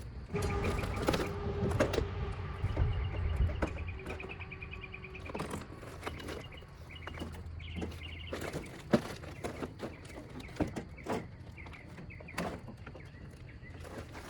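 Clicks and knocks of hand tools and plastic trim as the fasteners holding a car's front bumper are undone, with a thin steady tone in roughly the first five seconds.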